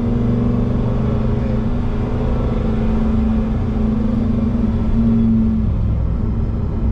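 Lamborghini Huracán's V10 engine heard from inside the cabin, running at steady, moderate revs with no revving. Its drone shifts slightly about five and a half seconds in.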